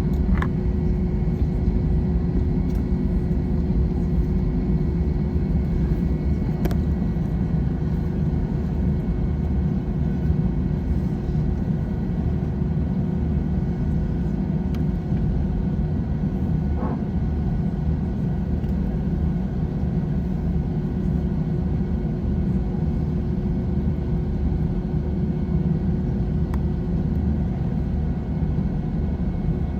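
Airbus A321 cabin noise on the ground, with the jet engines running at low power: a steady low rumble with a few steady tones over it and a couple of faint clicks.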